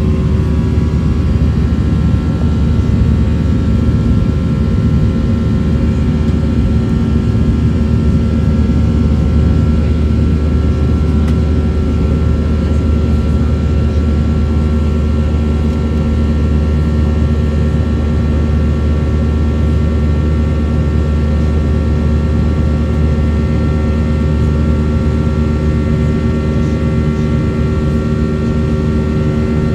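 Cabin noise of a Boeing 737-800 climbing after takeoff: the steady, even sound of its CFM56 jet engines and the airflow past the fuselage, heaviest in the low end, with a few steady hums over it.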